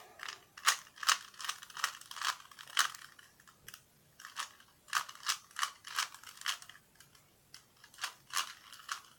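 Plastic Rubik's Cube being turned by hand: a quick, uneven run of short clicks and clacks as the layers snap round, with a couple of brief pauses.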